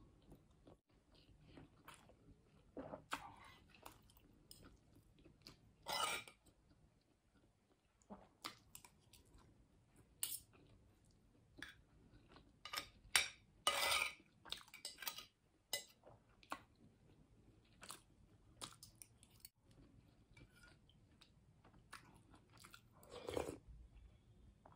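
Close-miked chewing of food, with many short clicks and a few louder noisy bursts scattered irregularly through it.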